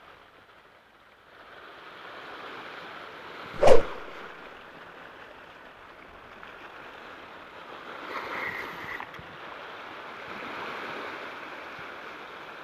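Ocean surf washing steadily against a rocky shoreline, with one sharp knock about three and a half seconds in.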